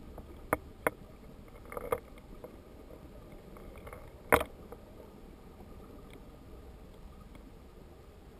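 Underwater sound of a creek pool picked up by a submerged camera: a low steady rush of water with a few sharp knocks and clicks, the loudest a little past four seconds in.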